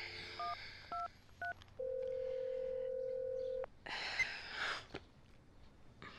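Cordless phone being dialled: the dial tone cuts off, three keypad tones sound about half a second apart, then a steady ringback tone runs for about two seconds. Just after the ringing stops comes a short burst of breathy hiss, then a click.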